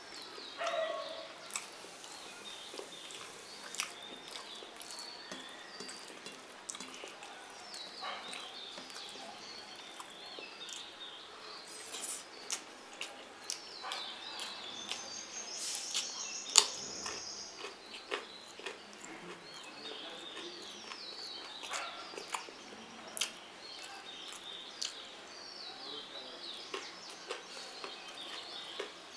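Eating sounds from a meal of rice and egg curry: chewing and scattered sharp clicks of food being handled on a plate, the loudest a little past the middle. High chirping calls come and go behind them.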